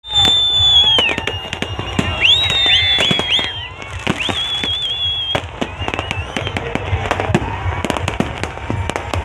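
Fireworks going off overhead in rapid succession, with many sharp bangs and cracks. High whistles glide up and down and break off during the first five seconds.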